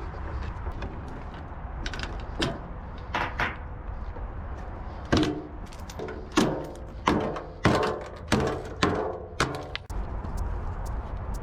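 Steady low rumble of a running vehicle, then a quick run of about seven loud clanks and thuds with short ringing tails, like doors or metal being banged.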